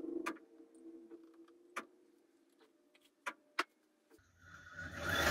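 A few faint, sharp clicks and taps while paint is blobbed onto the canvas. Then, about four seconds in, a rising rush of air and whirring as the string-driven spin-painting machine spins the canvas up to speed.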